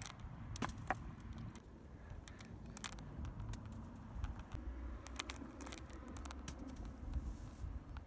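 Faint, uneven low rumble of wind on the microphone, with scattered small clicks and crackles.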